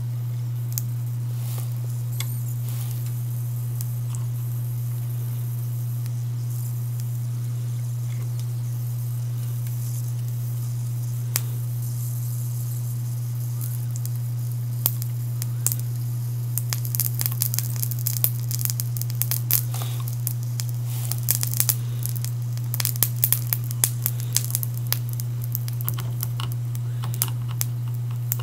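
Flux-cored lead-free solder crackling and sizzling as it melts against the soldering iron tip. The crackles start sparse about halfway through and grow dense near the end, over a steady low electrical hum.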